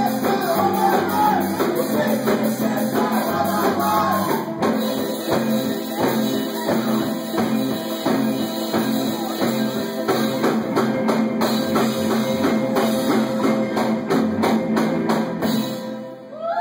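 Live rock band playing, with electric guitars, bass and a drum kit, and a man singing over the first couple of seconds. The whole band stops together near the end, ending the song.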